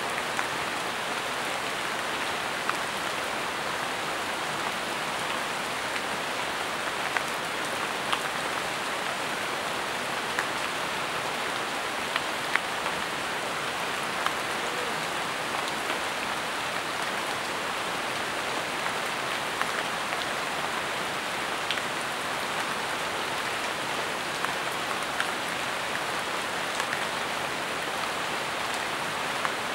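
Steady rain falling on jungle foliage, an even hiss with scattered louder drops landing close by at irregular moments.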